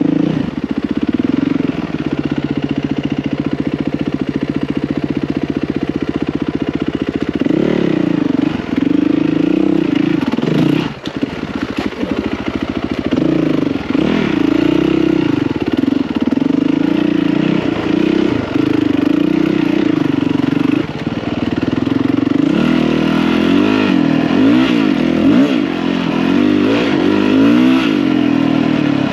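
Yamaha WR450F dirt bike's single-cylinder four-stroke engine under way. It holds steady revs for the first several seconds, then rises and falls in pitch over and over as the throttle is worked, briefly dropping away about eleven seconds in.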